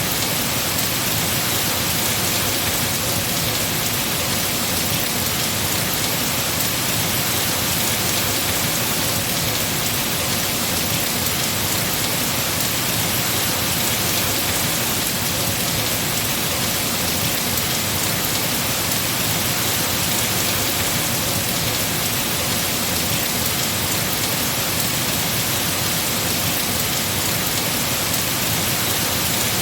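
Heavy rain falling steadily on trees, an even hiss with no breaks or gusts.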